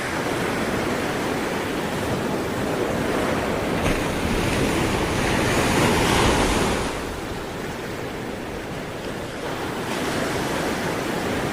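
Sea waves breaking and washing on the shore, a continuous rushing that swells to a peak about halfway through and then recedes, with wind on the microphone.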